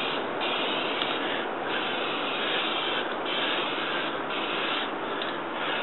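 Aerosol spray paint can spraying a steady hiss of paint onto cardboard, the higher part of the hiss dipping briefly about once a second.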